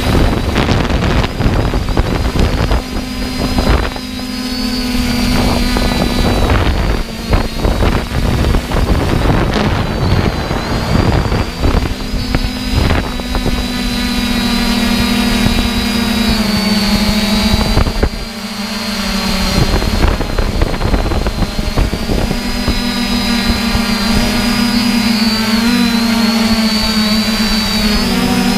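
3DR Iris+ quadcopter's four brushless motors and propellers whining steadily, heard close up from the camera on board. The pitch shifts down and wobbles now and then as the drone changes speed, with gusts of wind noise on the microphone.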